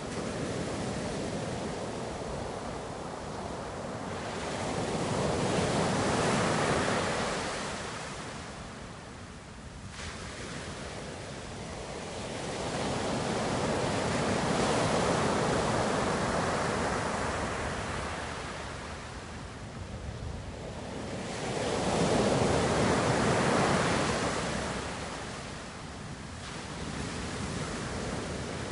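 Ocean surf: waves breaking and rolling in, swelling and fading three times, roughly eight seconds apart.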